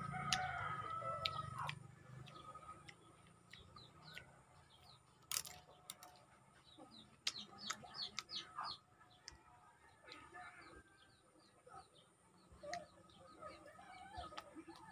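A rooster crowing in the first couple of seconds and chickens clucking in the background, among scattered sharp clicks and mouth sounds from eating a lemon slice.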